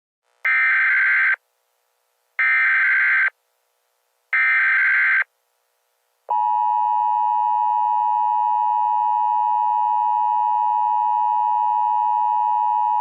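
Emergency Alert System tones: three buzzy bursts of SAME digital header data, each about a second long and about two seconds apart, then a long steady attention tone that starts about six seconds in.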